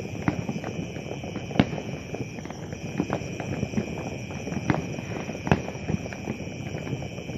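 Fireworks going off: a steady stream of irregular small pops and crackles, with louder sharp bangs about one and a half seconds in and twice around five seconds in, over a steady high-pitched hiss.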